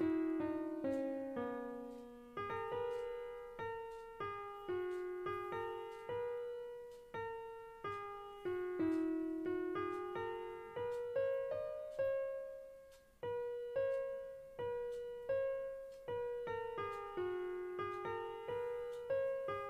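Background piano music: a slow melody of single notes, each struck and fading away.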